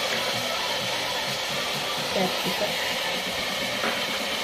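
Steady hiss of vegetables frying in hot ghee in an open pressure cooker.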